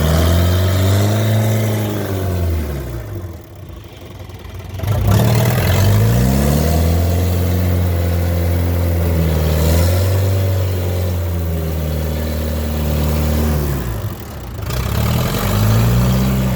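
Diesel engine of rice-harvesting machinery running under load. Its pitch sags and the sound fades about three seconds in, then it picks up again about five seconds in and runs steadily, with another short dip near the end.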